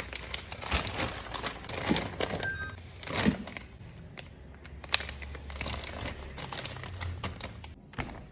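Plastic packaging crinkling and rustling as it is handled, with scattered sharp clicks and light knocks of items and containers being moved.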